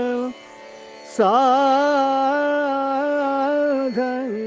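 Male Hindustani classical voice singing a wordless alaap: long held notes joined by slides. It breaks off just after the start, comes back about a second in with an upward slide into a long steady note, and dips briefly near the end.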